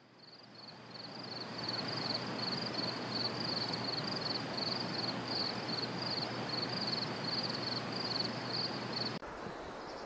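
A katydid calling: a steady series of short, high, buzzy chirps, about three a second, over a background hiss that fades in over the first couple of seconds. Both cut off abruptly near the end.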